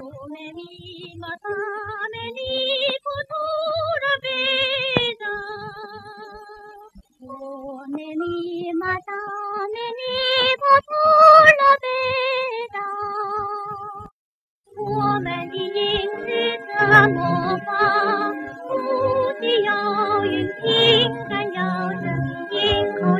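A woman singing a song with wide vibrato on an old 1940s Chinese film soundtrack, her voice at first standing nearly alone. After a short break about two-thirds through, a fuller instrumental accompaniment comes in beneath her.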